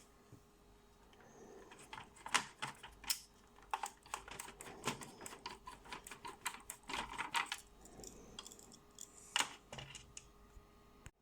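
Irregular light clicks and taps of small parts being handled, several a second, with the loudest snaps about two seconds in and again near the end.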